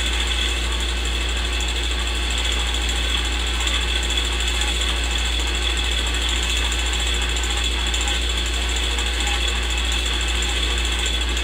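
Old film projector running: a steady, rapid mechanical clatter over a constant low hum.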